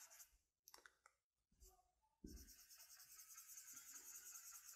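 Faint marker-on-whiteboard writing sounds: after a near-silent first two seconds with a few light clicks, fast repeated scratchy strokes set in as coiled loops are drawn.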